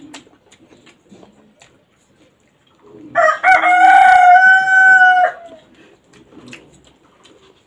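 A rooster crowing once, about three seconds in: one loud, drawn-out call of about two seconds that drops at the end.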